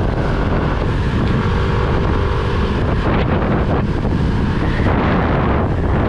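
Wind buffeting the microphone of a riding motorcycle, a steady loud rumble with the engine running faintly underneath.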